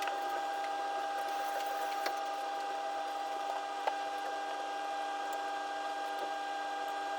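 A steady held tone with fainter overtones, under a few faint taps and clicks; the clearest tap comes about four seconds in.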